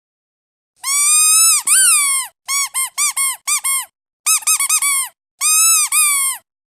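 Squeaky dog toy squeezed repeatedly, giving high squeaks. There are two long squeaks, then a run of short quick ones, another fast flurry, and one long squeak near the end.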